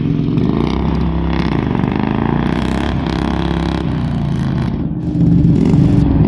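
Tractor engine running under load, then revving up and getting louder about five seconds in.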